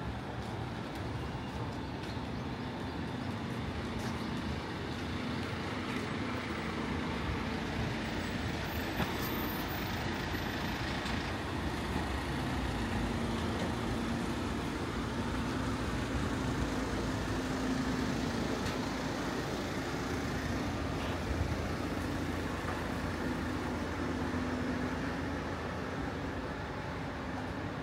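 Street traffic, with the engine of a large road vehicle such as a bus or truck running.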